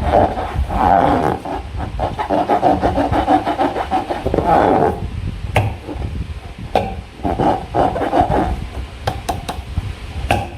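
Slime being squished and worked against a transparent rubber balloon by hand: a squelching, rubbing texture full of quick small clicks and pops, easing off briefly about halfway through.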